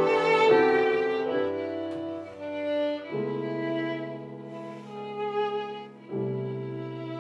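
Violin and grand piano playing a duo: the violin carries a melody of held notes over sustained piano chords, with new chords struck about three seconds in and again about six seconds in.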